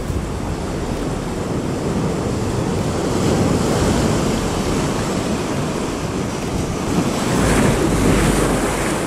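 Sea surf breaking and washing around shore rocks, swelling louder about three seconds in and again near the end, with wind rumbling on the microphone.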